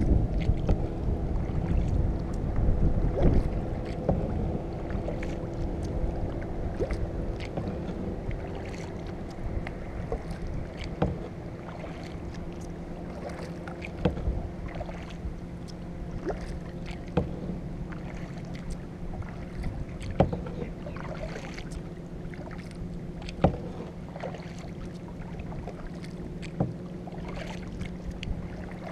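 Kayak being paddled: water washing and dripping around the paddle and hull, with a sharp short splash or tap roughly every three seconds as strokes are taken. A louder rumble comes in the first few seconds, and a faint steady low hum runs underneath.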